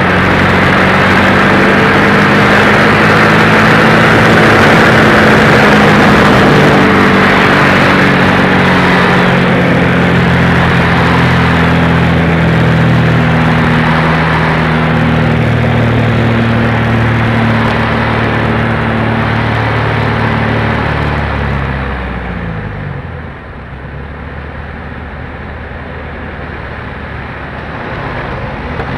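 Aerobatic biplane's piston engine and propeller running at high power under manoeuvre, with rush of air, the pitch shifting a little. About three quarters of the way through the engine note sweeps down and falls back to a quieter idle, then starts to build again near the end.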